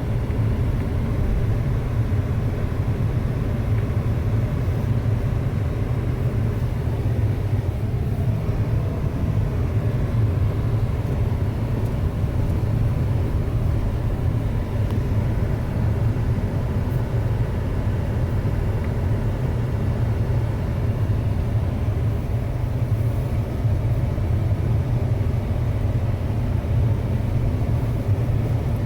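A 2006 Ford Expedition being driven, a steady low engine and road rumble that stays even throughout.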